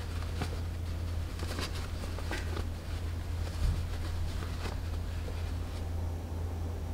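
Cotton dress fabric rustling with soft clicks as hands fold and fasten a sleeve cuff, and one soft low thump a little past halfway, over a steady low hum. The rustling stops near the end.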